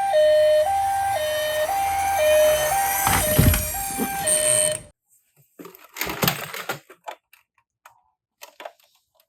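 Toy ambulance minicar's electronic two-tone hi-lo siren, switching between a higher and a lower tone about twice a second in the Japanese ambulance pattern. A brief low rumbling knock comes about three seconds in. The siren cuts off abruptly about five seconds in, followed by a few sharp plastic clicks and rattles.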